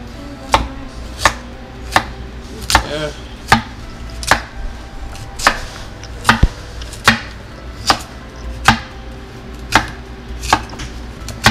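Large kitchen knife slicing through a carrot onto a wooden cutting board: a sharp knock of the blade hitting the board with each cut, about fifteen cuts at an even, unhurried pace of a little more than one a second.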